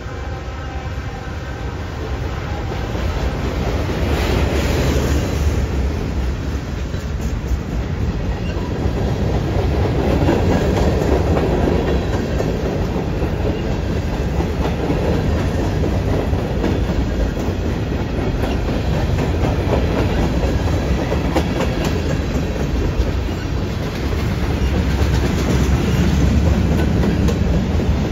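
Freight cars of a mixed freight train rolling past close by: a steady rumble of steel wheels on rail with a running clatter of wheel clicks, a little louder from about ten seconds in.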